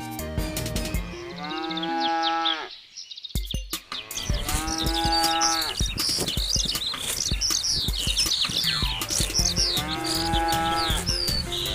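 Cows mooing: three long drawn-out calls, the first about two seconds in, one around five seconds and one near the end. Birds chirp high above them from about four seconds on, over quiet background music.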